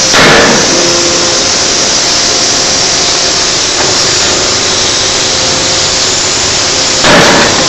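Electro-hydraulic forging hammer striking a hot workpiece twice, the blows about seven seconds apart, each with a short ring. Loud steady machinery hiss throughout.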